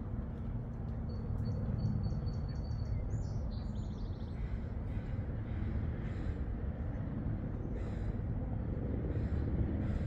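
A steady low rumble of outdoor background noise. Over it, a small bird gives a quick run of high repeated notes and a short trill in the first few seconds, then bird calls come about once a second.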